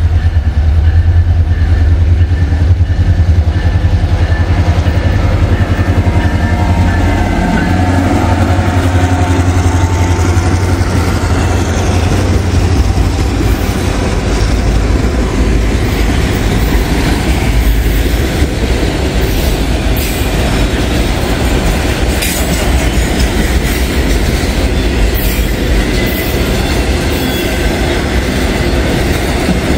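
Diesel freight train passing close: the locomotive's engine hum is strong at first, then the cars roll by with a steady clickety-clack of wheels over the rail joints.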